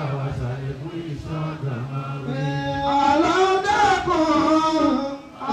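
Men chanting the Arabic salawat, blessings on the Prophet Muhammad, in long drawn-out notes. A low held voice comes first; a little over two seconds in a higher, louder melodic line takes over.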